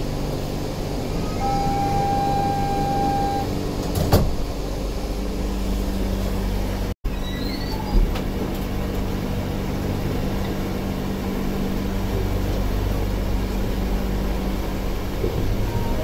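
Inside a New Shuttle rubber-tyred guideway car. While it stands in the station, an electronic tone sounds steadily for about two seconds and a knock follows about four seconds in. After a brief break the car is under way, with a steady running hum and a low, even motor drone.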